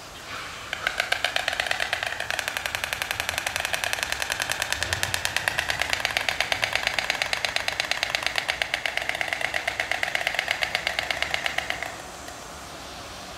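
White storks clattering their bills in a greeting display: a fast, even rattle of wooden-sounding clacks that starts about a second in, runs for about eleven seconds and stops abruptly.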